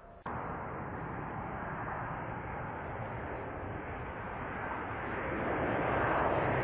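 Jet engines of a twin-engine narrowbody airliner on final approach with its gear down: a steady rushing noise that comes in abruptly just after the start and grows louder about five seconds in as the jet draws nearer.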